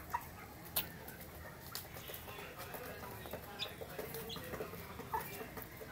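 Young chickens giving short, scattered peeps and soft clucks, with a few sharp taps, the loudest near the start and about five seconds in.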